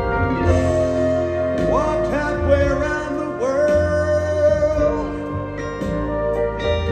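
Live band playing an instrumental passage; a lead line slides up into a long held note twice over a steady bass.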